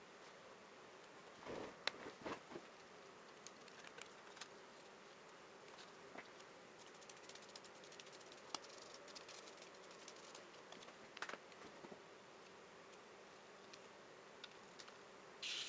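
Near silence: a faint steady hum with scattered small clicks and taps, and a few soft knocks about two seconds in.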